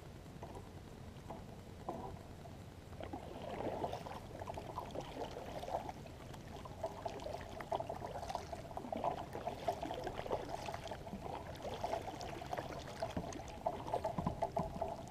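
Water lapping and trickling against a kayak's hull as it moves, a run of small irregular splashes that grows louder about three seconds in.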